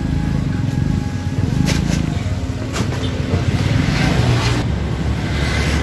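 A motor vehicle engine running steadily, with a few sharp knocks.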